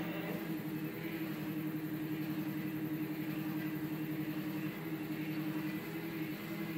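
Stepper motors of a homemade CNC hot-wire foam cutter running, a steady hum whose pitch steps to new notes a couple of times in the second half.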